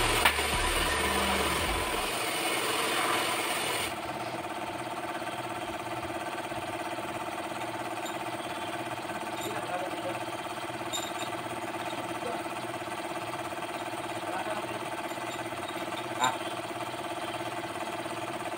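A loud hiss that cuts off about four seconds in, then the steady hum of a running machine, with a few faint metal clicks.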